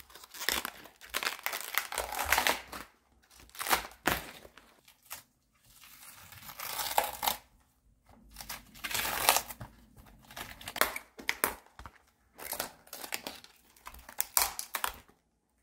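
Outer leaves being torn off a fresh head of green cabbage: crisp tearing and crackling as each leaf snaps and peels away from the head, in a run of separate bursts with short pauses between them.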